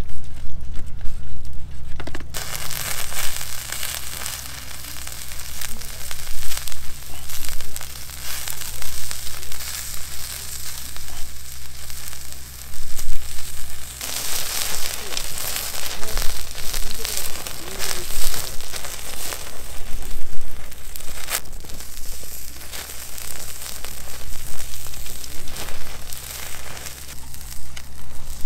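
Pork and leek yakitori skewers sizzling on a wire grill net over a wood fire, with fat spitting and crackling. The sizzle comes in about two seconds in, after a quieter start.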